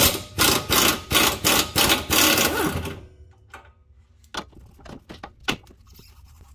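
A powered wrench rattling in several short bursts for about three seconds as it spins off a sway bar bolt, followed by a few scattered light metallic clicks and knocks.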